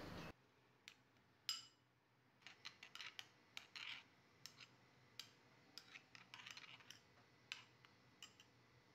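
A spoon mixing ground spices into thick curd in a bowl: faint, irregular clicks and short scrapes of the spoon against the bowl, the loudest about one and a half seconds in.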